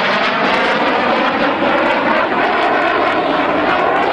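Fighter jet's engines roaring on a low pass overhead: a loud, steady jet roar with no break.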